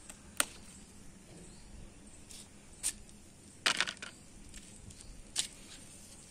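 Handling noise: a few short, crisp rustles and clicks as a hand moves among the leaves of a potted brinjal plant. A quick cluster a little past halfway is the loudest.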